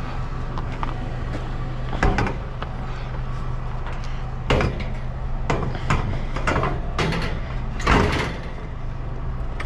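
Vehicle engine idling with a steady low hum, under a series of about ten irregular knocks and clanks from junk being handled. The loudest knocks come about two, four and a half and eight seconds in.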